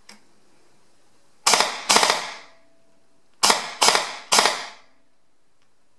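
Bare LCT V-box airsoft electric gearbox with a Gate Titan v3 MOSFET, motor and battery connected, dry-firing in five short bursts: two, a pause, then three. Each burst is several rapid cycles of the motor and gears. It is firing full-auto even though its selector is set to the calibrated semi position.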